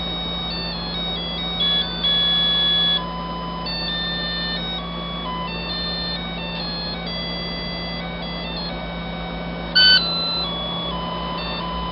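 Digital alarm clock playing one of its electronic ringtone melodies: a tune of pure, beeping tones that step from note to note, with a louder note near the end. A steady low hum lies under it.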